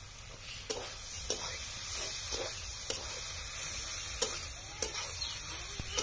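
Goat meat pieces frying in an iron kadai with a steady sizzle that grows louder about a second in. A metal spatula scrapes and clinks against the pan in short strokes as the meat is stirred.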